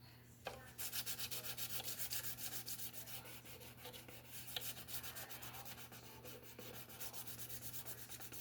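Hand sanding or rubbing on a round-back mandolin's wooden bowl, fast back-and-forth strokes about six a second starting about a second in.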